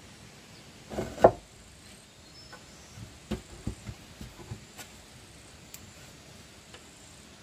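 Wooden boards knocking together as they are handled and stood against each other: a loud double clack about a second in, then a run of lighter wooden taps and knocks.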